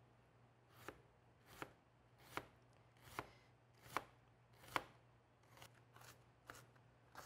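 Chef's knife slicing an onion on a plastic cutting board: a soft knock with each stroke, about one every 0.8 s, then fainter and quicker strokes in the last two seconds.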